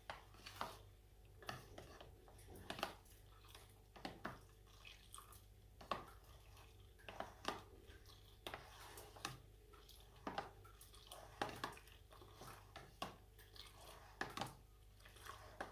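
Faint, irregular clicks and taps of a spoon stirring talcum powder and cornstarch into a melted-soap mixture, roughly one tap every second.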